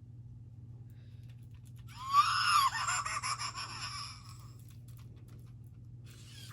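Fingerlings Grimling Evil Gigi toy's electronic sound effect from its small speaker: a high-pitched, wavering creepy voice. It starts about two seconds in, lasts about two and a half seconds, and runs over a faint steady low hum.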